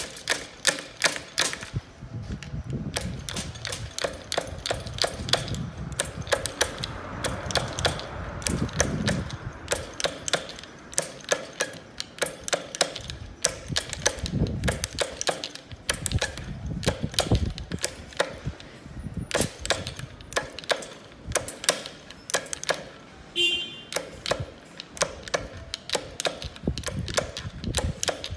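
Metal clicking and tapping, several times a second and not quite evenly spaced, as a screwdriver is worked against the gear stack of a Volkswagen manual transaxle to free the gears and synchronizer, with a low rumble of the parts being handled. There is a brief ringing squeak near the end.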